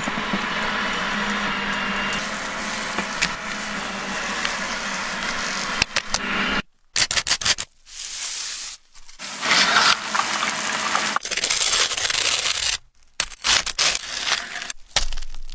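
Food frying in a pan with a steady sizzle for about six seconds, then short stretches of scraping and rubbing noise, each cut off abruptly by sudden silences.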